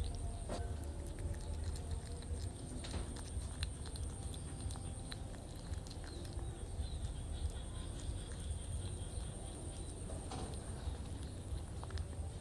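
Close-miked kitten chewing small boiled fish, with irregular small wet clicks and smacks of its mouth. A steady low hum and a faint high whine run underneath.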